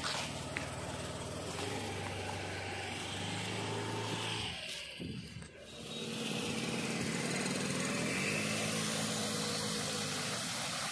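A motor vehicle's engine running, its pitch stepping up and down with speed. It dips briefly about halfway through, then picks up again at a higher pitch.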